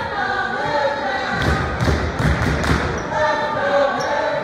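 Repeated dull thuds, several a second, under voices calling out with long drawn-out shouts in a large, echoing hall.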